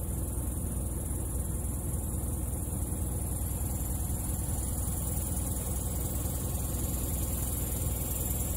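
Steady low hum of a vehicle engine idling, with an even high hiss over it.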